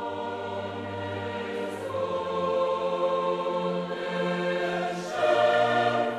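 Background choral music: voices holding slow, sustained chords that shift about two seconds in and again about five seconds in.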